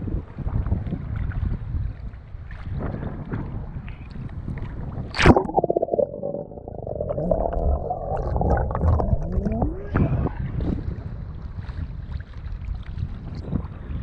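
Wind buffeting and choppy sea water sloshing against an action camera's microphone at the surface. About five seconds in there is a loud splash and a quick burst of bubbling as the camera dips under, then muffled underwater gurgling with rising tones until it breaks the surface around ten seconds in, and the wind and sloshing return.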